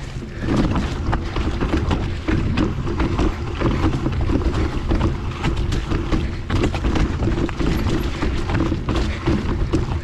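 Mountain bike riding over a rough trail: wind rushing on the microphone over a steady rumble, with frequent rattling clicks.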